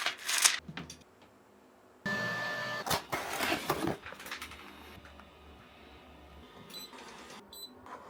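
Handling noises of unpacking a 3D printer: sharp clicks and rustling. About two seconds in, a brief steady whine sets in with more rustling, then it dies down to a low hiss with a few small ticks.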